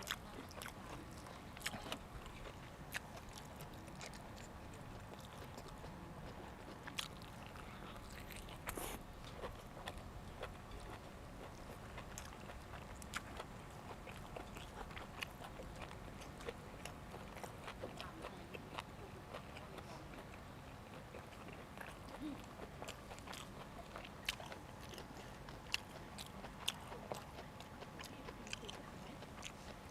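Close-up chewing and biting of food, with scattered sharp clicks and crunches over a faint steady background.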